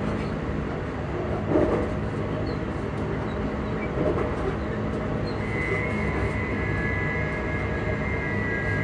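Class 334 electric multiple unit running, heard from inside the carriage: a steady rumble of wheels and running gear with a couple of brief knocks, and a high steady traction-motor hum that sets in about five and a half seconds in.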